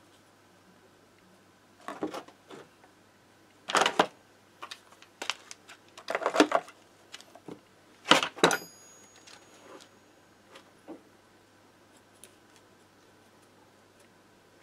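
Small metal parts and tools clattering and clinking on a workbench in several short rattling bursts, one clink near the middle leaving a brief metallic ring, then a few faint ticks.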